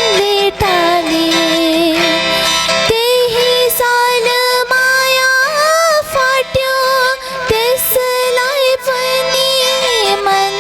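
A woman singing a Nepali modern song in long, gliding melodic phrases over instrumental accompaniment.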